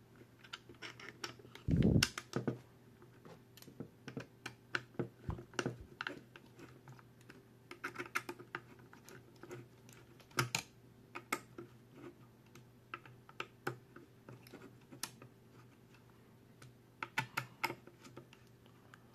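Small 3D-printed plastic parts being hand-assembled: irregular light clicks and taps as the idler tensioners are slotted into the frame and a hex driver works a bolt through the idler wheel, with one duller knock about two seconds in.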